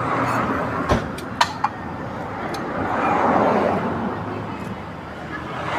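Road traffic passing close by, the noise swelling and fading as two vehicles go past, with a few short sharp clicks about a second in.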